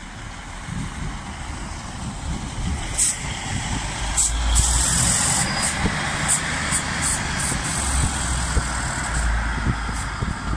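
A two-car Class 156 diesel multiple unit passing close at low speed, its underfloor diesel engines running with a low rumble that grows louder as it draws alongside. Several brief high-pitched squeaks from the wheels on the curving track come in the middle of the pass.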